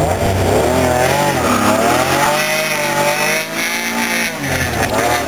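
1993 Dodge Stealth R/T's non-turbo V6 heard from inside the cabin, driven hard through an autocross cone course. The engine eases off about two seconds in and pulls again near the end, with tires squealing in wavering tones through the turns.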